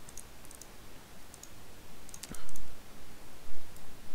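Computer mouse clicking: a scatter of light, sharp clicks, with one louder short knock about two and a half seconds in.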